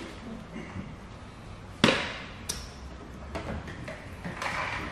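A hand spray bottle spritzing tack solution and wet paint protection film being handled on the bumper, with one sharp knock about two seconds in followed by a fading hiss, and a short click just after.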